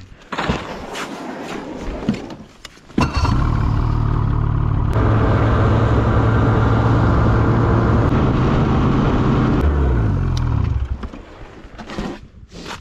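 Ski-Doo snowmobile engine, preceded by a few knocks and rattles of gear being handled. The engine starts abruptly about three seconds in and steps up to a higher throttle a couple of seconds later. It runs steadily as the sled rides across the ice, then drops in pitch and dies away near the end.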